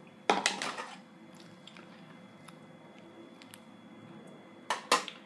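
Wet squelching as cooked nopales go into a pan of simmering green salsa with pork ribs and are stirred in with a metal spoon. A sharp splat comes about a third of a second in, then faint stirring with small clicks, and two sharp knocks near the end.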